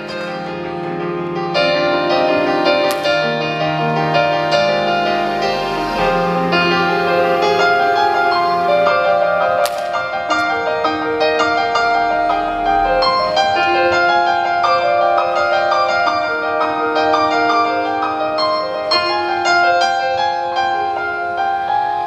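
Live keyboard playing: an instrumental passage of sustained chords and a melody line in a piano-like tone, with no voice.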